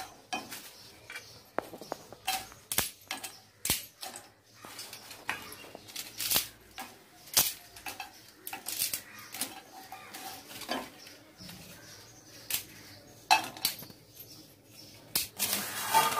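Dried cinnamon bark snapped by hand into small pieces over a frying pan: irregular sharp cracks, and the clatter of pieces landing in the pan.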